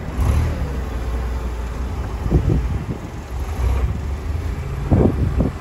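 Forklift running close by with a steady low rumble while it loads a crated transmission into a station wagon's cargo area; two short dull thuds come about two and a half and five seconds in.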